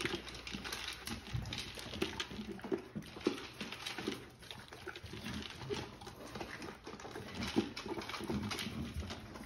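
A dog eating from a plastic slow-feeder bowl on a tile floor: irregular clicking and rattling of food against the bowl's plastic ridges, with chewing and snuffling as the bowl is nosed around.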